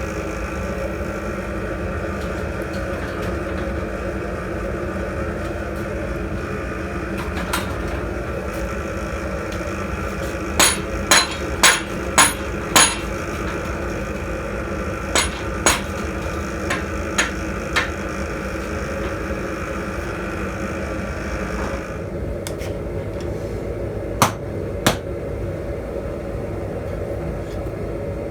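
Blacksmith's hammer striking metal: a quick run of five sharp blows, then lighter scattered taps and a couple more blows later, over a steady mechanical hum that changes near the end.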